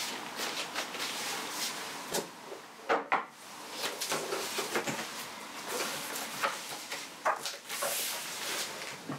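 Handling sounds of a hardcover book at a desk: scattered knocks and thuds as someone sits down, sets the book on the desktop and opens it, then the rustle of pages being turned.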